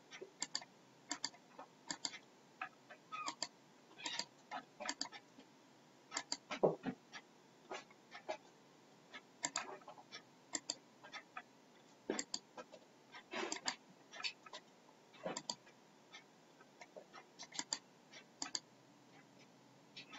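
Computer mouse clicks, short sharp ticks coming irregularly, often in quick pairs or small clusters, as layer styles are clicked through in Photoshop.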